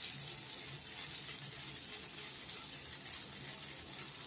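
Blini batter sizzling with a faint, steady crackle in a hot non-stick frying pan.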